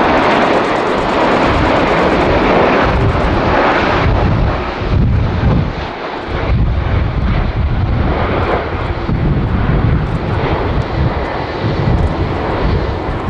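Airbus A330-300 airliner's Rolls-Royce Trent 700 turbofans running at approach power on short final to landing, a loud, steady jet noise. From about halfway a deep low rumble grows stronger as the airliner descends toward the runway.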